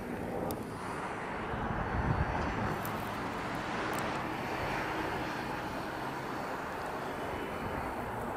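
Freight train cars rolling along the rails: a steady rumble of wheels on track with a few faint sharp clicks and squeaks.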